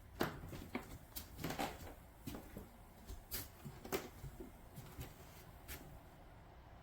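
Handling noises: a run of about a dozen irregular light knocks and clicks, as of hands moving or touching hard plastic, over a low steady hum.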